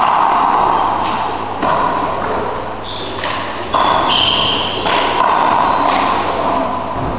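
A handball rally in an enclosed four-wall court: the ball smacked by hand and off the walls about seven times, each hit ringing on in the court's echo. Short high squeaks of shoes on the wooden floor come in the middle.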